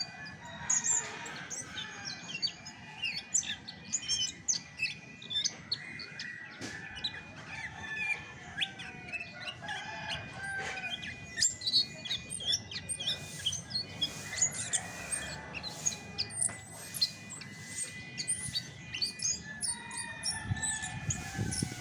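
Chestnut-backed thrush singing: a rapid, varied run of chirps, trills and whistled notes that goes on without pause.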